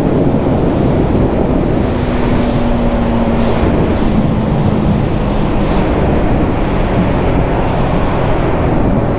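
Yamaha R15 V4 motorcycle riding at speed: its 155 cc single-cylinder engine running steadily under a heavy rush of wind on the helmet-mounted microphone, with a faint held tone for a few seconds in the middle.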